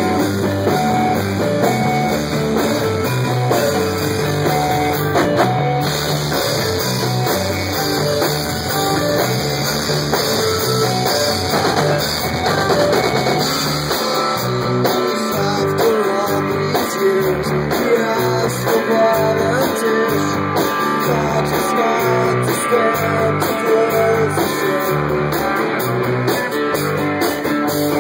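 Rock band playing live: electric guitar, bass and drum kit at full, steady loudness, heard from within the crowd.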